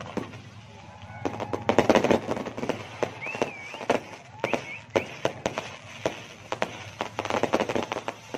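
Fireworks and firecrackers going off in rapid, irregular crackling bangs, densest about two seconds in and again near the end.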